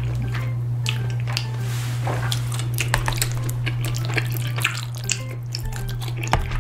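Training chopsticks stirring and lifting rice cakes and noodles in a thick, sticky rosé cream sauce: wet, sticky sauce sounds with many light clicks against the plate, over a steady low hum.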